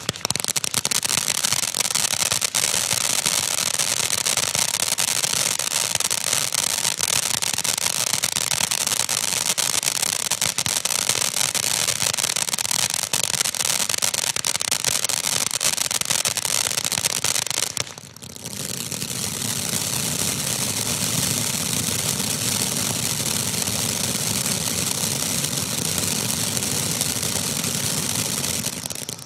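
Black Cat 'Big Cat' ground fountain firework burning: a steady hiss of spraying sparks, dense with fast crackling. It drops out for a moment about 18 seconds in, then starts again.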